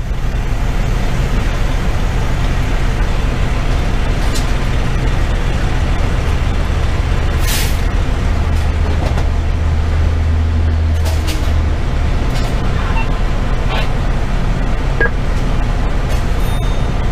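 The 470 hp Detroit Series 60 diesel of a 2010 Pierce Velocity fire engine running steadily, heard from inside the cab. A short hiss of air comes about seven and a half seconds in, with a few light knocks later on.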